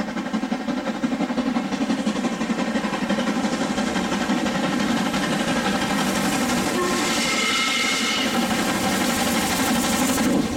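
LMS Black Five 4-6-0 steam locomotive working on full power at speed, its rapid exhaust beat growing louder as it approaches.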